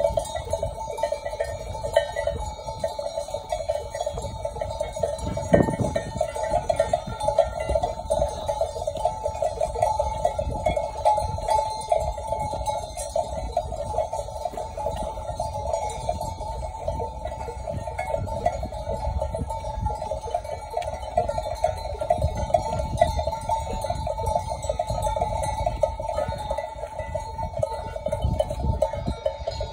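Many bells on a walking flock of sheep clanking continuously in a dense jangle, over a low rumble.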